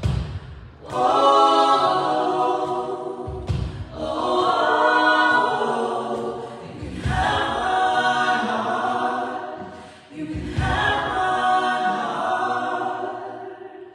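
A small group of worship singers sings a hymn together in phrases a few seconds long. Each phrase opens with a deep low note, and the singing trails off near the end.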